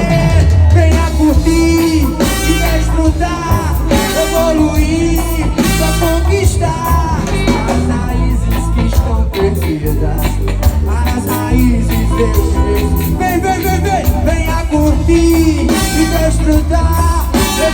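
Live band music: a strong bass line and guitar, with a voice singing over it at times.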